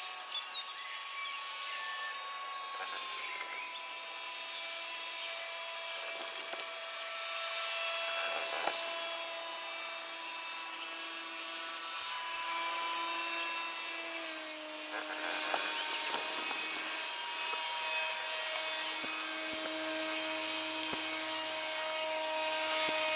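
Motor and propeller of a radio-controlled paramotor running as a steady whine. Its pitch drops slightly about three seconds in and again about fourteen seconds in.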